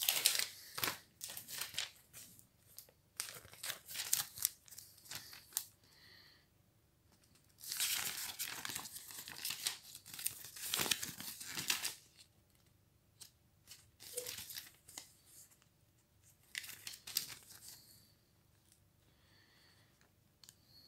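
Paper rustling and crinkling as a printed invoice sheet is handled, in several bursts with the longest in the middle.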